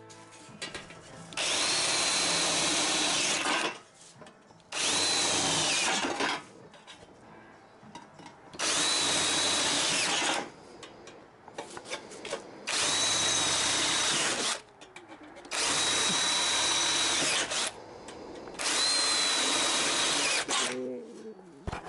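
A cordless drill boring holes through the sheet-steel flange of a car's cowl panel. It runs in six separate bursts of about two seconds each, with a steady high whine in each, and short pauses between holes.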